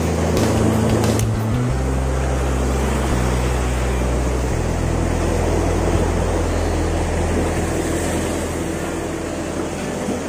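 Background music with held low bass notes that change pitch a couple of times, over the steady wash of surf breaking on rocks.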